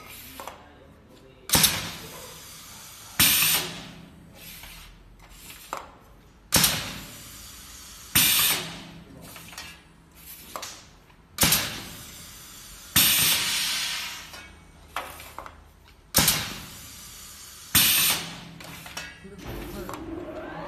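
Semi-automatic pneumatic aerosol filling machine cycling: sudden bursts of compressed-air hiss as its air-driven heads stroke, in pairs about a second and a half apart, repeating about every five seconds. A steady low hum runs between the bursts.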